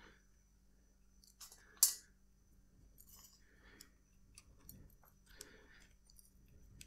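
Faint, scattered clicks and taps of small parts and bicycle chain being handled while the lower piece of a chain guide is fitted around the chain. One sharper click comes about two seconds in.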